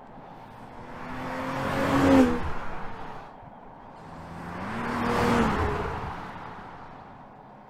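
BMW X3 M40i's turbocharged straight-six passing by twice, swelling in and fading away each time, about two seconds in and again three seconds later. On each pass the engine note climbs under acceleration, then drops away as the car goes past.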